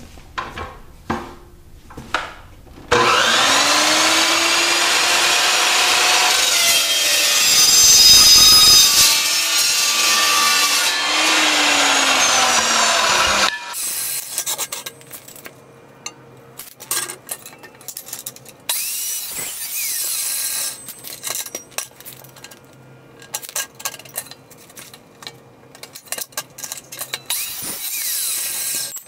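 Evolution EVOSAW380 14-inch cold saw whining up to speed, its blade cutting through square steel tubing for about ten seconds, then winding down. Afterwards, clinks and clanks of the steel tubing being moved and clamped in the saw's vise.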